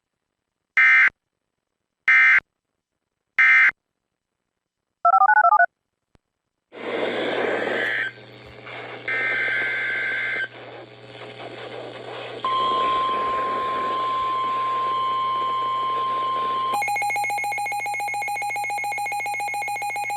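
Emergency alert data bursts: three short, shrill bursts of end-of-message code about a second apart, then a short warbling tone. A hissy, humming weather radio recording follows, with shrill data bursts and then a steady NOAA Weather Radio alert tone held for about four seconds. Near the end it gives way to a fast pulsing electronic alarm.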